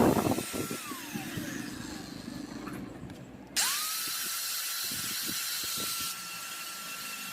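Bosch 650 W, 100 mm angle grinder running free with no disc load. It is switched off about a second in and its whine falls away as it winds down. About three and a half seconds in it is switched on again, spins quickly up to speed and holds a high steady whine. A few knocks of handling come near the start.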